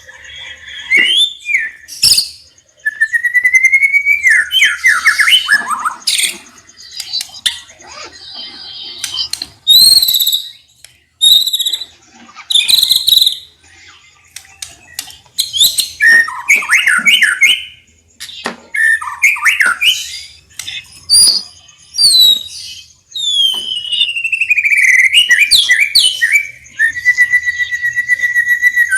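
White-rumped shama (murai batu) singing a varied song: loud whistled phrases, pitch glides and quick rattling trills, broken by short pauses.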